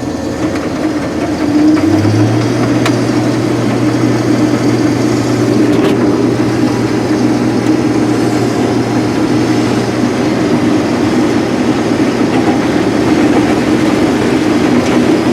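Rotary combine harvester running from inside the cab as the corn head is switched on and spins up. The overall running sound rises over the first two seconds, and a low steady tone steps up in pitch about two seconds in. It then runs steadily with the separator and header engaged.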